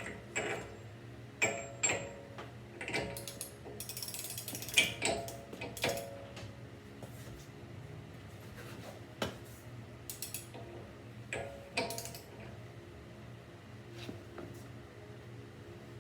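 Metal hand tools being handled: sockets and a breaker bar clanking and clicking irregularly, each knock with a short metallic ring. A denser run of clicks comes about four seconds in, and the knocks thin out after about twelve seconds.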